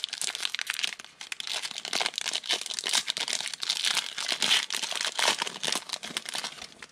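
Foil football trading-card pack being torn open and pulled apart by hand: a dense crinkling and crackling of the foil wrapper.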